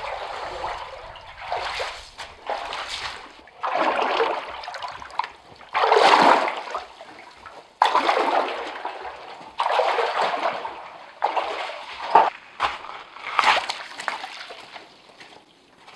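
Wading steps through shallow muddy water in sandals, each step sloshing and splashing, about one every second or two; the splashes fade near the end.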